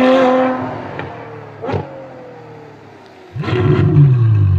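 BMW M4 GTS twin-turbo straight-six engine and exhaust: a loud high-rev note that falls slowly in pitch and fades as the car pulls away, with a single sharp crack about a second and a half in. Near the end a second loud burst of revving starts, climbing and dropping in pitch.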